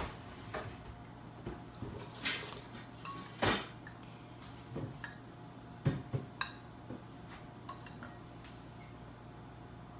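Metal spoon clinking and scraping against a ceramic soup bowl while eating, in a dozen or so scattered short clinks that thin out after about seven seconds. A steady low hum runs underneath.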